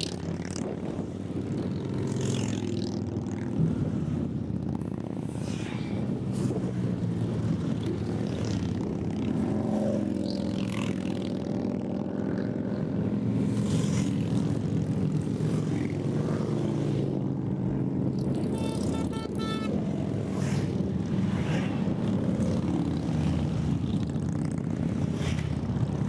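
A procession of motorcycles and trikes riding past one after another, their engines a continuous low drone with the swish of each machine going by.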